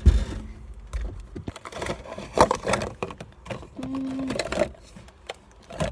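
Small plastic paint bottles clicking and knocking against each other and their plastic tray as they are rummaged through, with a short steady hum about four seconds in.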